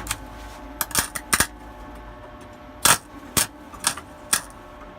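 Wire-feed welder arc striking in short, irregular crackling spurts, about seven of them, as a beginner keeps starting and losing the arc. A steady electrical hum runs beneath.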